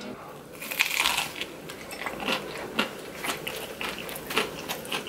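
Chewing a bite of crispy homemade Chicago-style deep-dish pizza crust close to the microphone: a quick, irregular run of crunches and crackles, starting about a second in.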